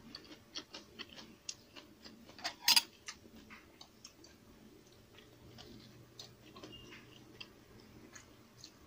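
Close-up eating sounds: scattered small clicks and taps from a spoon against a dipping-sauce bowl and plates, and from chewing, with a louder cluster of clicks about two and a half seconds in.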